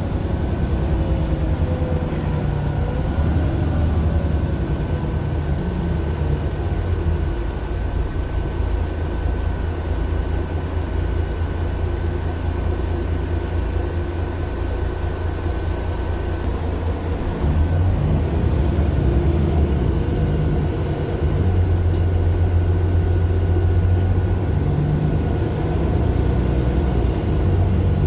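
Mercedes-Benz Citaro LE city bus running on its Daimler OM 457 hLA six-cylinder diesel, a steady low drone with a faint high whine over it in the first half; the engine gets louder about 17 seconds in and again a few seconds later.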